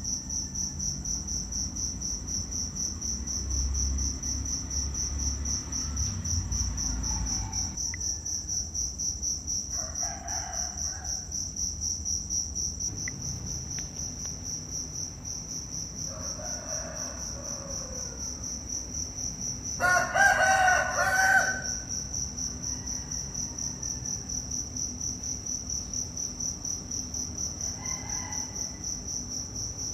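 Insects chirring steadily in a high, fast-pulsing chorus. About twenty seconds in, a loud pitched animal call lasting about a second and a half rises above it, and a few fainter calls come now and then.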